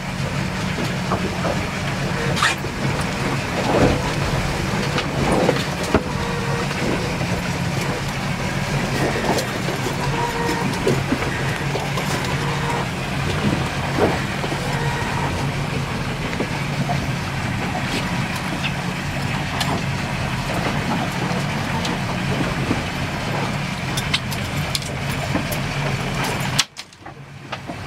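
Charter boat's engine running steadily at trolling speed, with wind and wave noise over it and a few short knocks and clatters on deck. The sound cuts out abruptly for a moment near the end.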